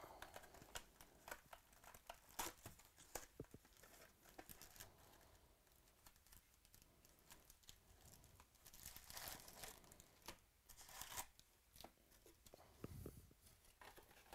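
Faint tearing and crinkling as a baseball card hobby box is torn open and its foil-wrapped card packs are pulled out and stacked, with scattered light clicks and rustles.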